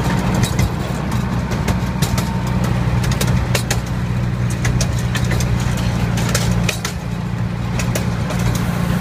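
Miniature ride-on train running along its track: a steady low engine hum, with frequent sharp clicks and rattles from the wheels and cars.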